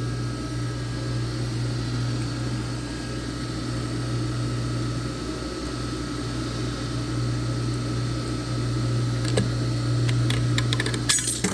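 Large parts washer's pump running with a steady hum, and a few light metallic clicks and clinks near the end.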